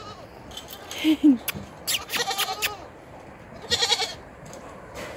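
Five-month-old goat kids bleating in several short calls, with a few sharp clicks around two seconds in.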